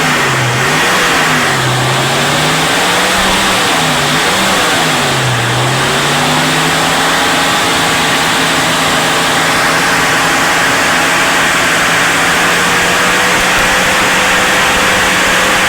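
Maruti Suzuki Gypsy petrol engine being revved in several short blips of the throttle over the first six seconds, then held at a steady raised speed. It is being run to check the misfire that was traced to the ignition coil.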